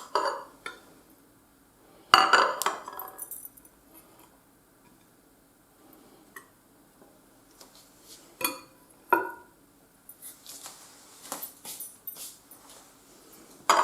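A knife and cutlery clinking against crockery while a freshly baked cake is cut and a slice is lifted out. There are a few separate clinks, the loudest about two seconds in, then a run of lighter taps and scrapes near the end.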